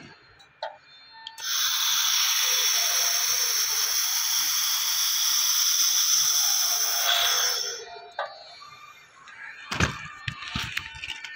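AccTek handheld laser welding gun firing on a steel sheet joint: a steady hiss that starts about a second and a half in and stops suddenly near 8 seconds. A few knocks and clinks of metal follow near the end.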